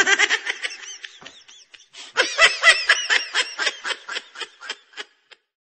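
Laughter in two bouts of quick, pitched pulses: a short one that fades out, then a longer, louder one about two seconds in that tapers off near the end.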